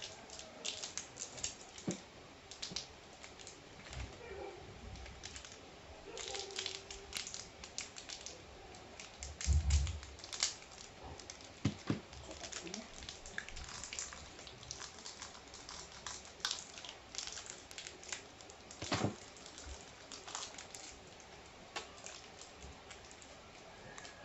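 Eating of a sour candy snack: many small irregular clicks and crinkles of chewing and of the snack packet, with a low thump about ten seconds in.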